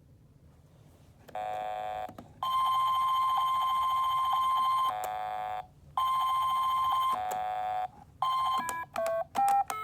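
Simon Carabiner electronic game's buzzer sounding in its test mode: a short buzzy tone about a second in, then several long steady tones with brief gaps, then a quick run of short beeps at changing pitches near the end.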